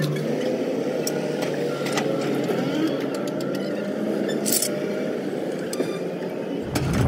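A motor running steadily, with a few sharp clicks scattered through it and a louder low rumble coming in near the end.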